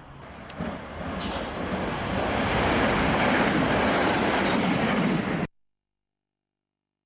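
Electric multiple-unit train passing a station platform at speed: a rushing noise of wheels on rails and displaced air that builds over the first couple of seconds and stays loud, then cuts off abruptly about five and a half seconds in.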